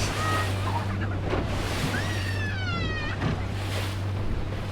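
A RIB boat's outboard engine running under way, a steady low hum, under wind and water rushing past. About two seconds in, a high wavering cry sounds and falls in pitch.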